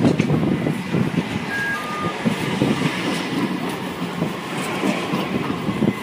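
Low-floor street tram rolling past on its rails, a steady rumble and clatter mixed with street noise, with two short beeps, the second lower, about two seconds in.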